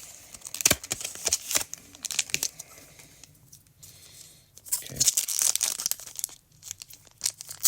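Foil and plastic wrapper of a Pokémon booster pack crinkling and tearing as it is handled and opened, in two spells of crackling with a short lull about halfway through.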